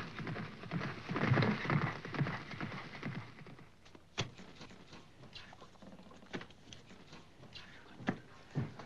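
A horse galloping, with rapid hoofbeats, for about the first three and a half seconds. It gives way to quieter scattered clicks and rustles of banknotes being handled on a table, with one sharp click about four seconds in.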